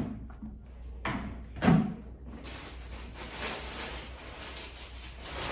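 Knocks and a thud from a small household dustbin being handled, much like a lid or cupboard opening and closing, followed by a steady rustle.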